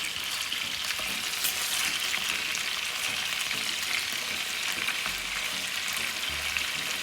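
Chicken thighs frying in hot fat in a pot: a steady sizzle with small crackles.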